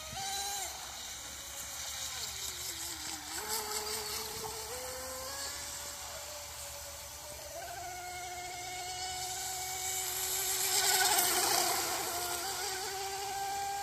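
Brushless electric motor (TP Power) of an RC outrigger speedboat, whining high at speed. The pitch dips and climbs with throttle through the turns, then holds steady from about eight seconds in. It swells to its loudest about eleven seconds in, with a hiss over the whine.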